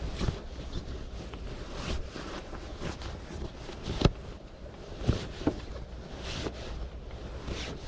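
Nylon sleeping bag rustling and swishing in irregular bursts as it is bunched and pushed into place by hand, with a short sharp sound about four seconds in.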